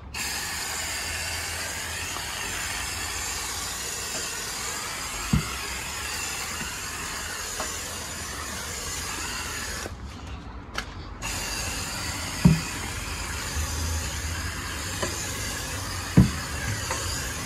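Garden-hose spray nozzle jetting water onto a foamy condenser coil, a steady hissing spray rinsing off coil cleaner. The spray breaks off briefly about ten seconds in, and a few dull thumps come through.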